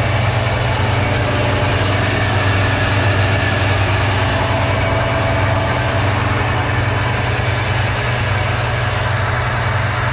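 Milk tanker's milk transfer pump running steadily, loading milk from the farm's bulk tank into the truck, with a loud, even hum.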